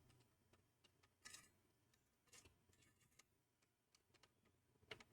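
Near silence with a few faint, scattered clicks and ticks: a screwdriver turning the screws that hold a CPU heat sink in a Mac Pro.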